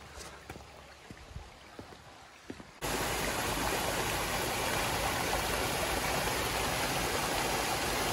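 Water pouring over a stone weir: a loud, steady rush that starts abruptly about three seconds in. Before it there is only the faint trickle of a shallow stream with a few light knocks.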